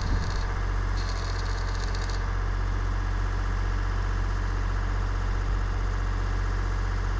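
An engine running steadily at idle, with a strong low hum. In the first two seconds, two short stretches of dense, high crackling hiss from an electric welding arc.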